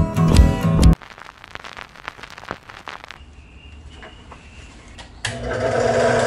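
Acoustic guitar music stops about a second in, followed by a few seconds of faint clicking. Near the end a Harbor Freight mini lathe cuts in suddenly, a turning tool rasping steadily against spinning wood.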